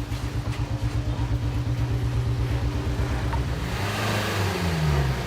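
Car engine idling, then revved with the accelerator about three and a half seconds in, its pitch rising and falling back. The engine has just had its carbon deposits cleaned out.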